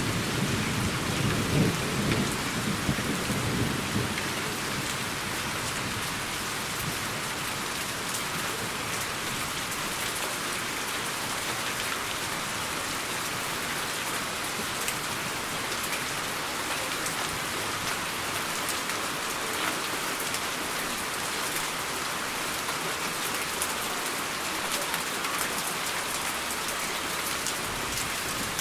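Steady rain falling with a constant hiss, and a low rumble of thunder in the first few seconds that dies away.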